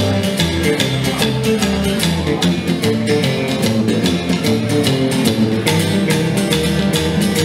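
Live rockabilly band playing an instrumental passage: upright double bass and guitars, with a steady driving beat of sharp hits.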